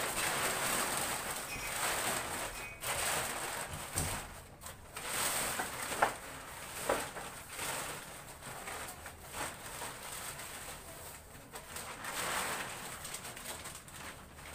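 Plastic sheeting rustling and crinkling in waves as it is pulled and tucked into place over a rack, with two sharper crackles near the middle.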